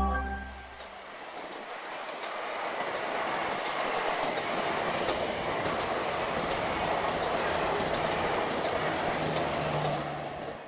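Train running on the rails, its wheels clacking over the rail joints. It grows louder over the first few seconds and fades away near the end.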